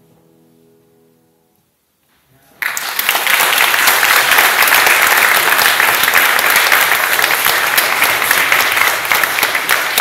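The last chord of a grand piano dies away into a brief hush, then an audience breaks into loud applause about two and a half seconds in and keeps clapping.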